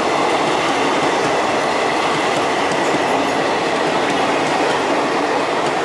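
Coaches of an express passenger train running through a station at speed close by: a steady loud rush of wheels on rail with clickety-clack from the bogies, with a faint thin whine over it, easing slightly near the end as the last coaches pass.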